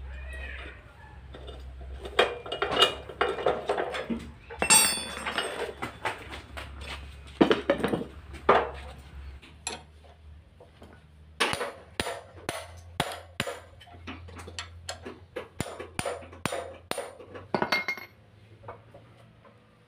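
Metal hand tools and metal parts clinking and knocking against each other in an irregular series of sharp taps, some briefly ringing, with a few scraping passes. A low steady hum runs under the first half and stops about halfway through.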